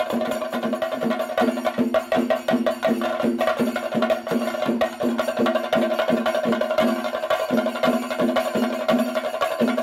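An ensemble of Kerala chenda drums played with sticks, hammering out a fast, even rhythm of sharp strokes over a steady ringing drum tone.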